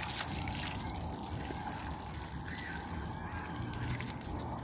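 Water trickling and lapping against a steady outdoor background, with a few faint short chirps.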